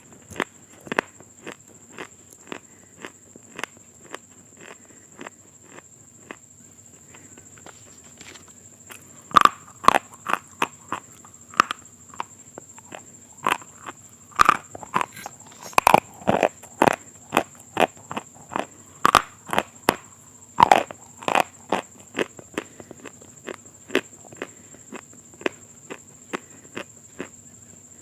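Someone chewing crunchy food close to the microphone: sharp crackling crunches a few times a second, louder and denser through the middle.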